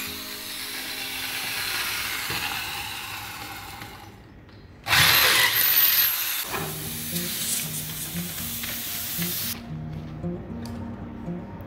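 Corded electric hand drill boring through an aluminium frame profile. Its motor winds down over the first few seconds, starts again about five seconds in with a rising whine, and runs for several more seconds before stopping.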